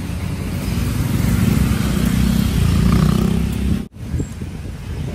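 Street traffic: a motor vehicle engine rumbling close by, growing louder in the middle, then cut off abruptly about four seconds in.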